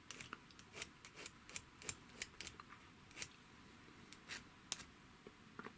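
Short, irregular scraping strokes of a hand tool on the metal point of a sewing machine's rotary hook, about two or three a second, dressing off a burr that catches the thread.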